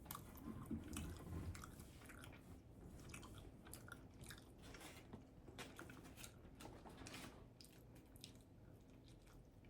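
Faint close-up chewing of a tuna melt sandwich: a steady run of small wet mouth clicks and soft crunches, with a few low thuds in the first second or two.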